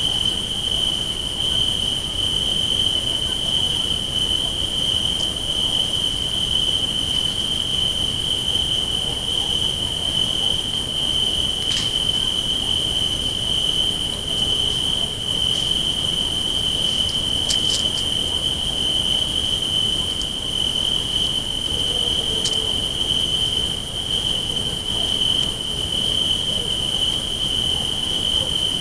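Trail camera's own steady, high-pitched electronic whine over a constant hiss, with a few faint ticks.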